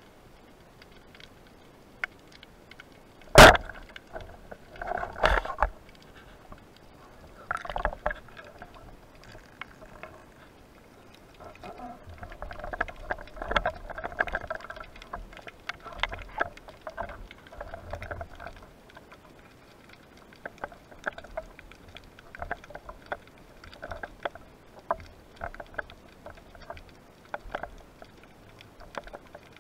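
Speargun firing underwater with one sharp crack about three seconds in, followed by scattered knocks, rubbing and water noise as the gun and the diver's gear are handled.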